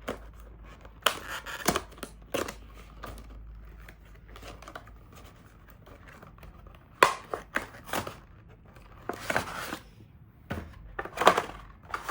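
A charger's retail packaging being opened and handled: irregular bursts of rustling and crinkling with sharp clicks and taps, the loudest around the middle and near the end.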